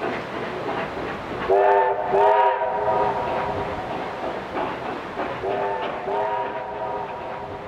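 A steam locomotive's chime whistle sounds twice in pairs, a short blast then a longer one each time, several notes at once on a steady pitch. Underneath runs the train's constant clatter and chuffing.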